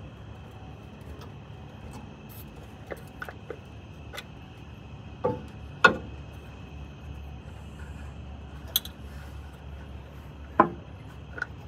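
Scattered sharp clicks and knocks of hand tools being worked on an engine, the loudest about six seconds in and again near the end, over a steady low hum and a thin steady high tone.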